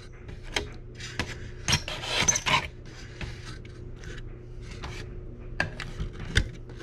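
Metal spoon scraping and tapping against a foil-lined glass baking dish while spooning pan juices, heard as irregular scrapes and light clicks, with a louder rustle about two seconds in. A faint steady hum runs underneath.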